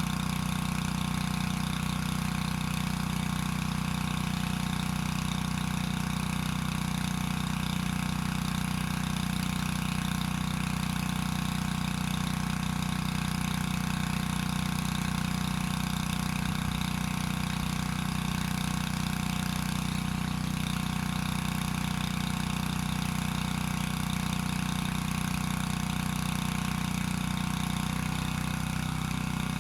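Predator gas-powered water transfer pump running steadily at a constant speed while pumping water.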